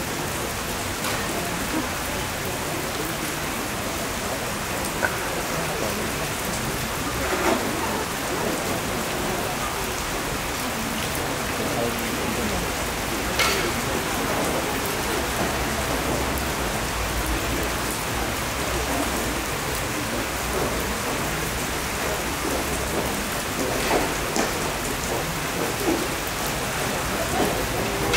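Steady rain falling outside, with three sharp snaps of kyudo bowstrings as arrows are released, about a quarter, half and most of the way through.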